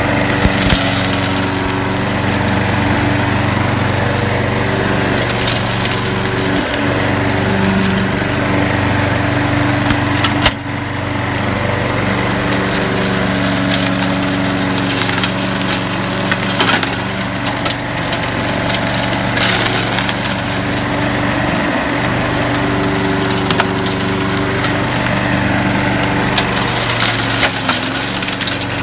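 Craftsman mulching lawn mower's Briggs & Stratton engine running steadily under load as its mulching blades chew through a pile of Spanish moss, with a constant crackle and rattle of moss and debris striking the deck.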